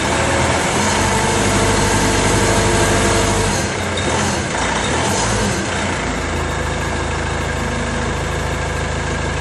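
Motor vehicle engine running, busier and louder for the first three and a half seconds, then settling into a steady low idle from about six seconds in.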